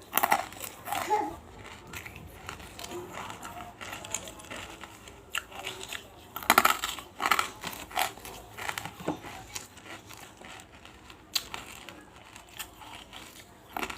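Close-miked crunching and crackling of large pieces of banslochan (tabashir, bamboo silica) being broken up in the mouth, in irregular crackles with the loudest crunch about six and a half seconds in.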